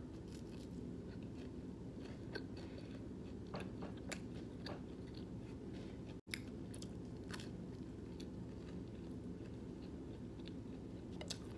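Biting and chewing a slice of toasted seeded bread topped with melted vegan cheese, with irregular crisp crunches over a steady low hum.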